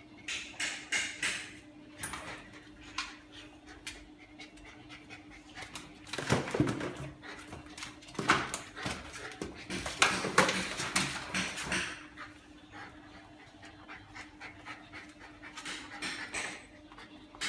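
A husky panting and scuffling about on a wooden floor as it plays with a toy. The sound comes in bursts, busiest and loudest from about six to twelve seconds in.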